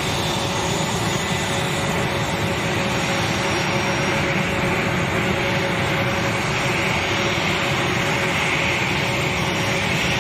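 A-10 Thunderbolt II's twin TF34 turbofan engines running as the jet taxis: a steady whine over a rushing jet noise.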